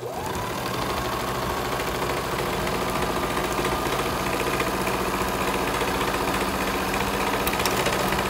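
Electric sewing machine stitching a seam: the motor speeds up as the stitching starts, then runs steadily at an even pace.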